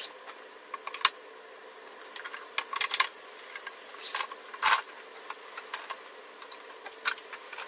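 Front Runner Wolf Pack plastic boxes and wooden legs being handled and fitted together: scattered clicks and knocks, loudest about a second in and again around three seconds in, over a faint steady hum.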